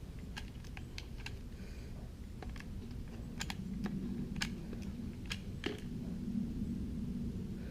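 Light, irregular clicks and taps of small wooden pieces being handled and set in place, about a dozen of them, over a low steady hum.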